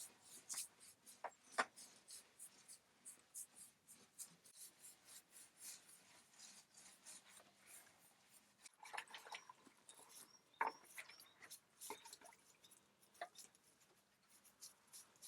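Faint paintbrush strokes: quick, repeated soft swishes of bristles brushing paint onto a surface, a few of them louder.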